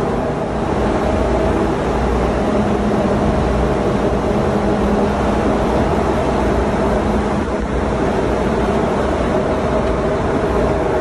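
Steady drone of a ship's engine room machinery running, an even noise with a low hum and a few constant tones underneath.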